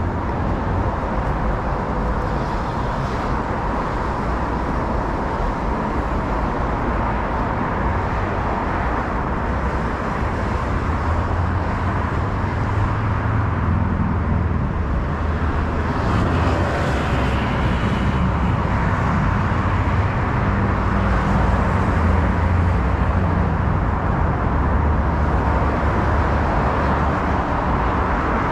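Steady city road traffic: cars running along a multi-lane road, with a constant low rumble under it.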